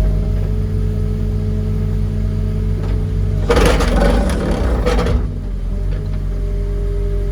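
Engine of the barge-mounted vibratory hammer rig running steadily, with a steady mid-pitched hum over it. About halfway through, a loud burst of rushing noise lasts about a second and a half.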